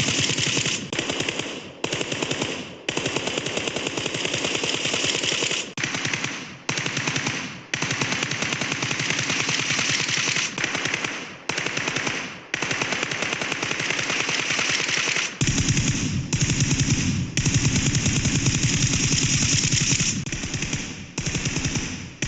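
Rapid automatic gunfire in repeated bursts of one to three seconds, with brief pauses between them. About two-thirds of the way in the fire takes on much heavier bass.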